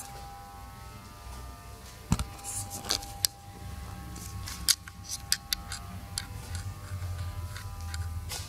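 Light clicks and taps from a handheld camera being moved, scattered irregularly, over a faint steady hum with a thin whine.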